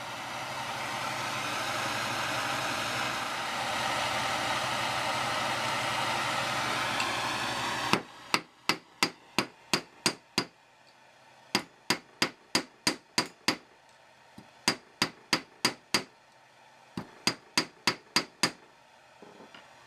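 Propane torch flame burning steadily as it heats a screwdriver's steel tip, stopping about eight seconds in. Then a hammer strikes the hot tip on a steel anvil to reshape it, in four quick runs of blows, about three a second.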